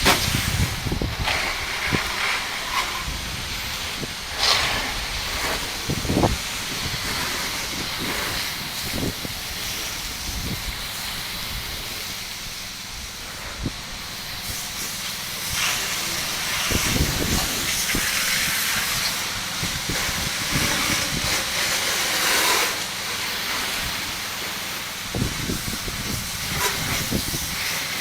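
High-pressure water spray from a pressure-washer wand hissing steadily as it cleans, with gusts of wind rumbling on the microphone now and then.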